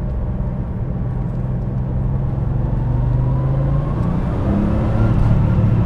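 Porsche 964 Turbo's turbocharged air-cooled flat-six pulling steadily, heard from inside the cabin. Its drone builds gradually in loudness, and a faint rising whine sits above it in the first half.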